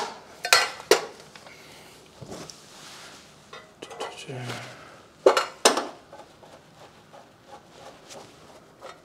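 Plastic cover of a small wall-mounted enclosure being handled and fitted: sharp plastic clicks and knocks, a few in the first second and two more about five seconds in, with quieter handling noise between.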